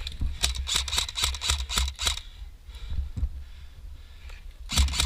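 Airsoft gun firing a quick string of shots, about three or four snaps a second, then a pause and a second burst of shots near the end.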